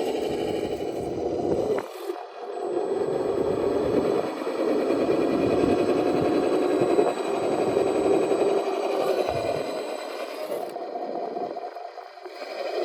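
RC crawler driving: the electric motor and gear drivetrain running under throttle with rattling and scraping. It eases off briefly about two seconds in and again near the end.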